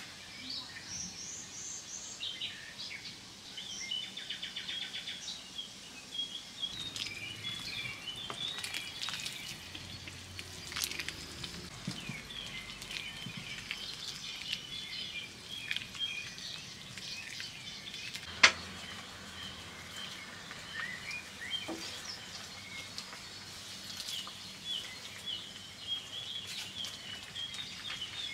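Small birds chirping and singing with many short, high calls and trills. A few sharp clicks sound among them, one of them loud about 18 seconds in.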